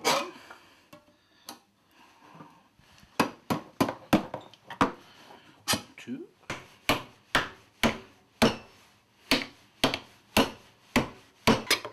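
A knife point stabbing into the lid of a tin can to open it: sharp metal knocks, one at the start, then after a short lull a steady run about twice a second.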